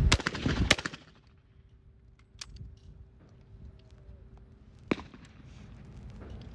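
Two sharp shotgun reports about two-thirds of a second apart, a doubles-trap pair fired at two clay targets, right at the start. After them it goes quiet, with a faint steady hum and a few isolated clicks, one sharper click about five seconds in.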